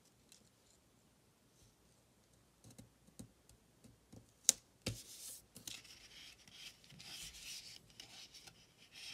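Fingers pressing and rubbing a paper flower sticker down onto a planner page: a few faint taps, one sharp tap about four and a half seconds in, then a dry papery rubbing for the rest.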